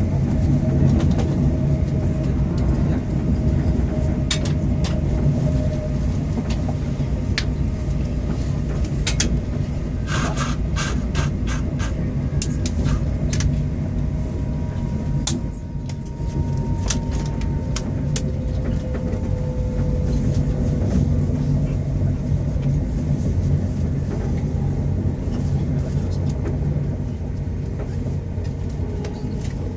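Steady low rumble of a train carriage in motion. About ten seconds in, a quick run of short, sharp sounds breaks through it.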